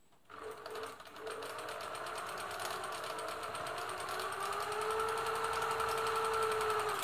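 Singer 766 sewing machine running at speed, sewing a straight stitch through fabric: a steady motor whine over the fast, even clatter of the needle. It starts a moment in, its pitch rises a little about two-thirds through, and it stops suddenly at the end.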